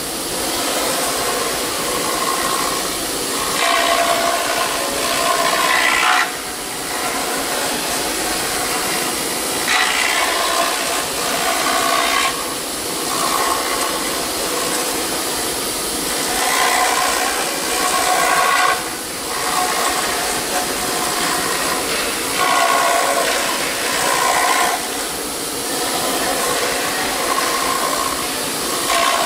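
CNC router spindle milling an EPS foam block turning on a rotary axis: a steady high whine under a rasping cutting noise that swells and fades every few seconds as the cutter bites into the foam.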